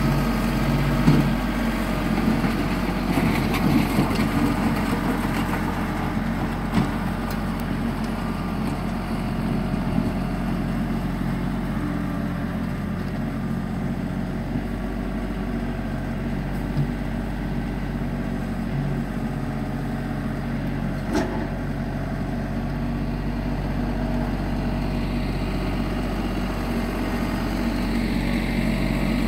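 LS compact tractor's diesel engine running steadily under load while dragging a Woods BSM72P box blade through dirt, louder near the start and end as the tractor passes close. The blade and soil add crunching in the first few seconds and a few sharp clicks.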